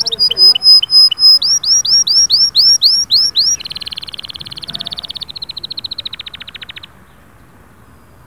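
Domestic canary singing a run of repeated phrases: a few loud whistled notes, then a string of sweeping notes about three a second, then two fast trills. The song stops near the end.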